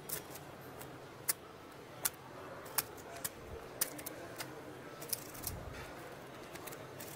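Poker chips clicking as a player handles his chip stack: sharp, separate clicks at irregular half-second to one-second gaps over a low room murmur.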